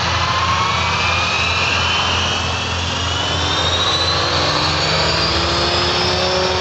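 Scale Hughes 300C RC helicopter (500-size kit) spooling up for takeoff: a loud motor-and-rotor whine rising steadily in pitch, over a steady low hum.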